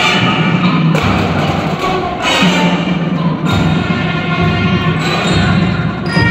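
Marching band playing: sustained chords with drum and percussion hits.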